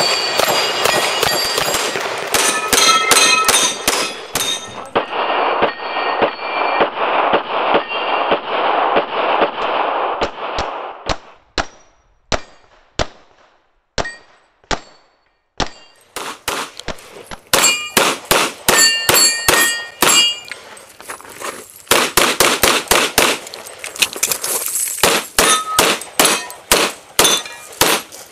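Pistol shots fired in fast strings at steel targets, with the steel plates clanging and ringing as they are hit, some of them on a spinning Texas Star. A few seconds of steady rushing noise come in early, then a sparser, quieter run of shots before fast strings start again.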